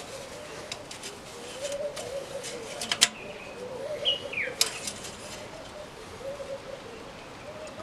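Doves cooing on and on in the background, with a short falling bird chirp about four seconds in. A few sharp clicks stand out, loudest about three seconds in.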